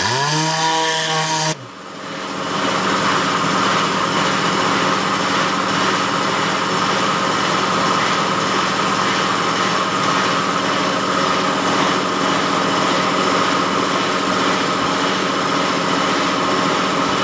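Tornador compressed-air cleaning gun fired in a short burst with a rising whirr, stopping after about a second and a half. A steady drone with air hiss then builds up over about a second and holds: the air compressor that feeds the gun, running.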